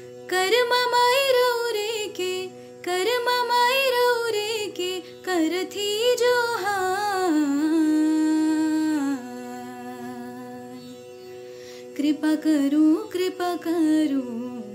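A woman singing a Nagpuri Karam song in drawn-out, sliding phrases over a steady drone. Near the middle she holds one long low note, the voice drops out briefly, and one more phrase follows near the end.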